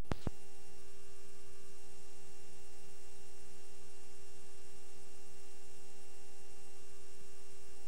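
Steady electrical hum with several constant tones over a hiss, the noise of a blank stretch of VHS tape being played back. Two sharp clicks come right at the start.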